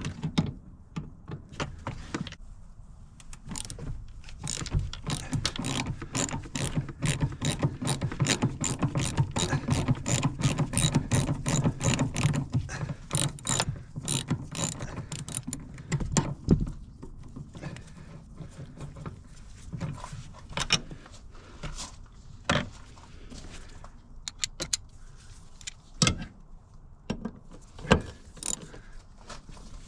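Hand ratchet clicking in quick runs of about four clicks a second through the middle, then scattered single clicks and knocks, as the car seat's mounting bolts are worked loose.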